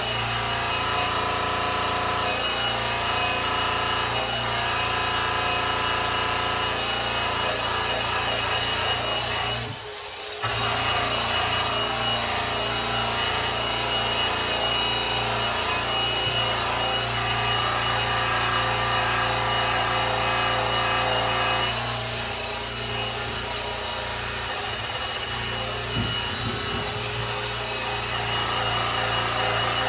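Electric polisher running against a grand piano's cabinet finish: a steady motor whine with a rubbing hiss as the pad buffs the surface. It dips briefly about ten seconds in and runs a little quieter in the last part.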